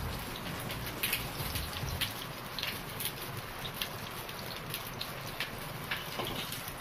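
Whole brinjal stuffed with green chillies sizzling and crackling as it roasts on a hot iron tawa over a gas burner, with scattered sharp pops. Near the end a spoon and spatula scrape on the tawa as the brinjal is turned.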